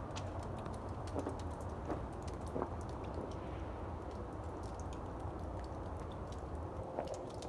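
Footsteps in fresh snow: three crunching steps in the first three seconds and two more near the end, over a steady low rumble and scattered small ticks.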